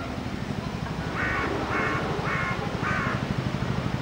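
A crow cawing four times in quick succession, about half a second apart, over a low steady hum.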